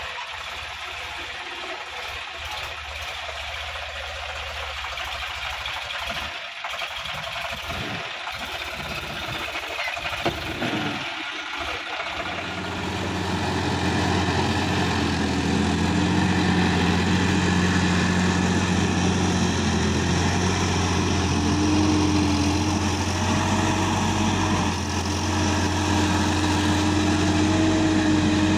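Sonalika DI-50 tractor's diesel engine running steadily in the field. About halfway through it becomes louder, with a fuller, deeper hum.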